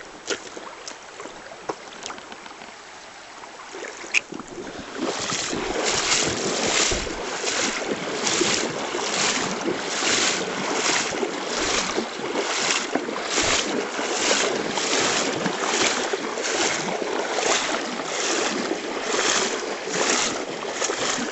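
A person walking at a steady pace, each stride a loud swish, about three strides every two seconds, starting about four seconds in. Before that there are quieter steps and a few clicks.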